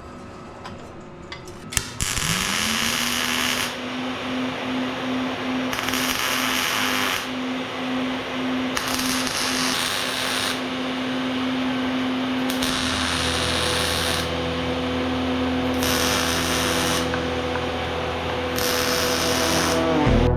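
Welding arc crackling in six short bursts of about a second each, a few seconds apart: short stitch welds joining a side panel to a steel box. A steady hum runs beneath, joined about halfway by a deeper hum.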